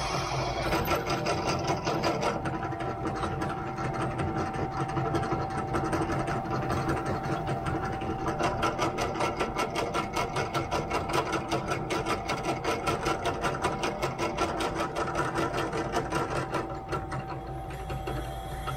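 Bench drill press running while its bit cuts into a flat metal strip, with a fast, even pulsing of about five strokes a second. The pulsing eases off near the end.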